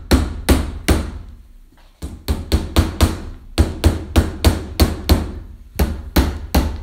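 Hammer driving thin plywood panel nails into a plywood back panel, a run of quick light blows. Three strikes, a short pause about two seconds in, then a steady run of about four blows a second; the nails go in slowly and it is rather noisy.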